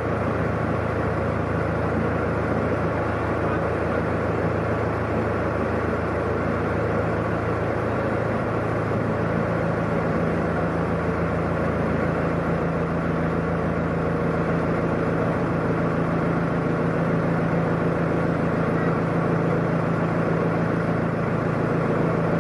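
Narrowboat engine running steadily under way, a continuous low hum whose tone shifts slightly about ten seconds in.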